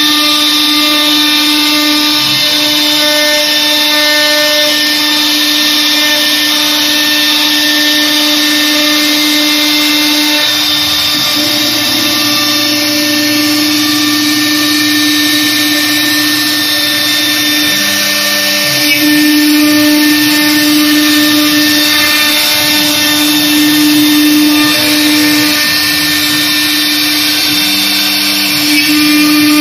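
Air-cooled spindle of a CNC router running with a steady whine while its bit cuts grooves in a fibreboard sheet. The whine weakens and wavers for several seconds about midway, then comes back steady.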